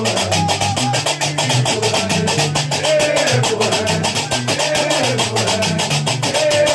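Gnawa music: iron qraqeb castanets clattering in a fast, steady rhythm over the plucked bass line of a guembri, with voices singing a chant.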